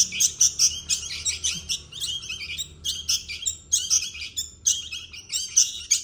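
Three fledgling songbirds giving rapid, high begging chirps, several a second without a break, beaks gaping for food: the hungry food-begging calls of young birds waiting to be hand-fed.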